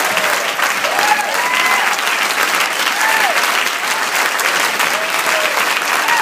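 Audience applauding steadily, dense clapping with a few shouted whoops and cheers rising and falling over it.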